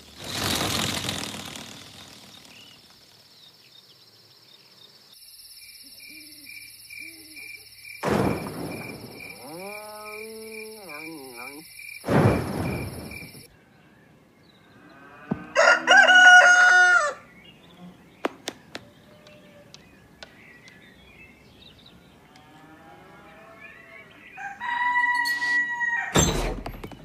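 A rooster crowing, one loud drawn-out crow about two-thirds of the way through and a shorter call near the end. Earlier come a few sharp knocks and a steady pulsing beep.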